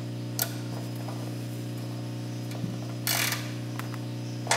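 Socket ratchet clicking in a few short bursts as the oil drain plug is turned back into the oil pan; the longest burst comes about three seconds in. A steady low hum runs underneath.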